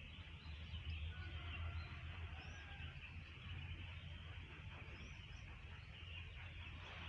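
Wild birds calling faintly with a few short chirps and thin whistles over a steady low rumble and a constant high background hiss.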